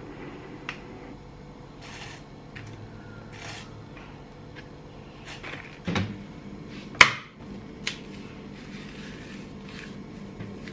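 Kitchen handling sounds: scattered small clicks and taps, a low thump about six seconds in, then a sharp click a second later, the loudest sound here, like a cupboard door or lid shutting.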